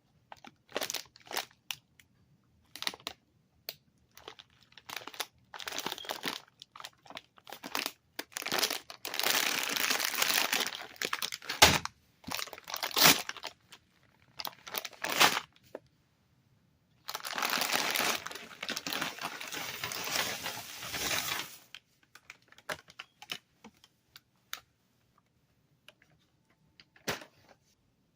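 Crinkly plastic cough-drop packaging being handled and opened. It comes in irregular bursts, with two long stretches of steady crinkling and two sharp clicks between them.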